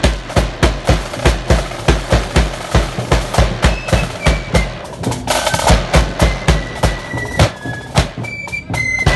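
Marching band drums, a bass drum and snare drums, beating a steady march rhythm with snare rolls. Near the end high-pitched wind instruments come in with a melody.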